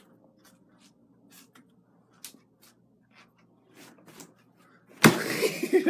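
Faint scattered ticks and rustling as a small dog scrambles into a plastic laundry basket full of clothes. About five seconds in comes a sudden loud clatter as the basket tips over, and a voice follows right after.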